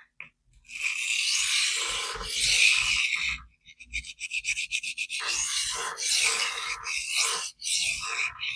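AEB-L stainless steel knife edge scraping across a 1000-grit vitrified diamond sharpening stone: one long grinding pass, then a quick run of short strokes, then more strokes with short breaks between them.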